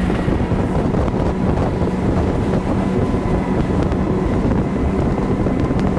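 Four 400 hp outboard engines on a catamaran running at speed, under the rush of water off the hull and heavy wind on the microphone. The sound stays steady throughout.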